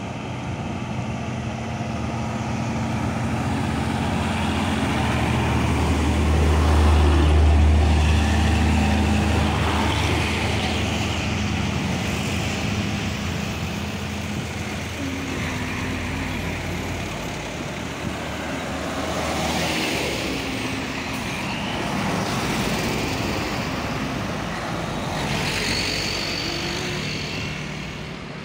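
Heavy diesel trucks driving past one after another. First an old Mitsubishi truck's engine pulls slowly in a low drone, loudest about seven seconds in as it passes close, then fades. The engines and tyres of further trucks rise and fall after it.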